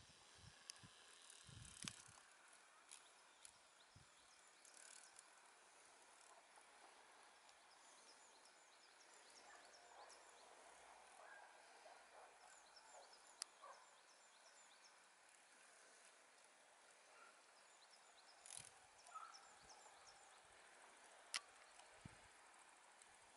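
Near silence: faint outdoor ambience with a few faint high chirps, scattered small clicks and some low bumps near the start and end.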